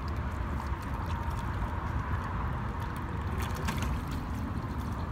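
Low, gusting rumble of wind on the microphone, with light splashing and trickling of water as gutted fish are rinsed by hand.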